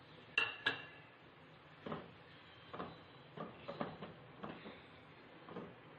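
Boneless chicken pieces sizzling in melted butter in an aluminium karahi, with a spatula scraping and knocking against the pan about every half second to second.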